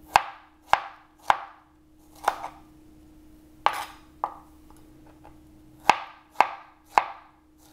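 Chef's knife slicing strawberries on a plastic cutting board: about ten sharp knocks of the blade meeting the board, unevenly spaced, with pauses of a second or more between some cuts.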